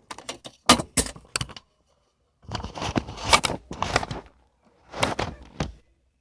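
Handling noise: a quick run of sharp clicks and knocks, then two stretches of rustling and clattering as parts are set down and the camera is moved about.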